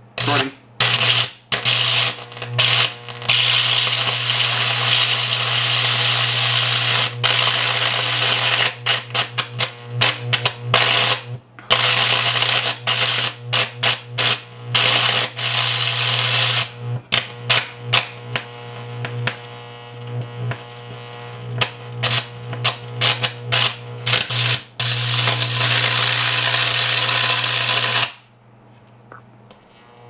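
High-voltage electric arc from a microwave oven transformer, drawn through an apple to a metal probe, buzzing with a low hum and crackling as it burns into the apple. It breaks and re-strikes many times in quick stutters, runs steadily for long stretches, and cuts off about two seconds before the end.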